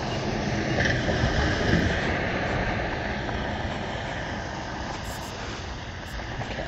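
A road vehicle passing, its noise swelling to a peak about two seconds in and then slowly fading away.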